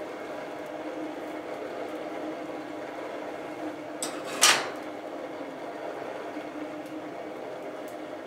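Forge air blower running with a steady hum, feeding air to a freshly lit fire in the fire pot. About four and a half seconds in, just after a light tap, comes a single sharp knock.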